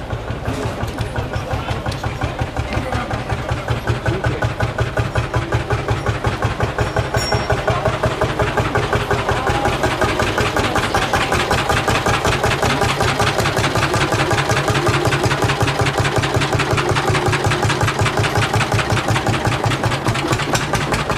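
Lanz Bulldog tractor's single-cylinder two-stroke engine running with a rapid, even beat. It grows louder over the first few seconds, then holds steady.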